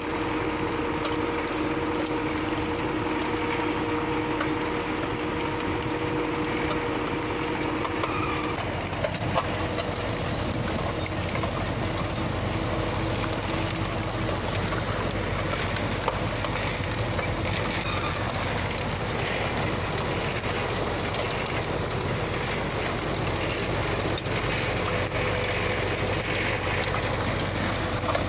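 MTZ-80 tractor's four-cylinder diesel running steadily under load while pulling an SZ-3.6 seed drill, heard from on the drill, mixed with the drill's running clatter and a few small knocks. The pitch of the drone shifts a little about eight seconds in.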